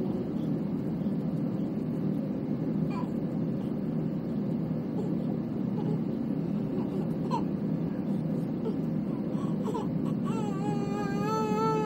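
Steady airliner cabin noise of an Airbus A321 in flight: an even, low rumble of engines and airflow. A baby whimpers faintly a few times and then breaks into a loud, long wavering cry near the end.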